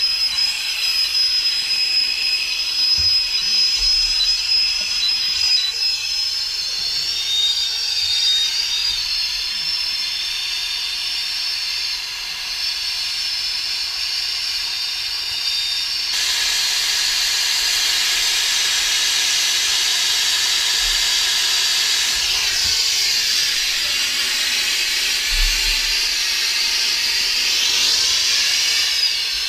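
Handheld plumbing torch burning with a steady hiss while heating copper pipe fittings for soldering. A thin high whistle runs through the first half, and about halfway through the hiss grows louder and fuller.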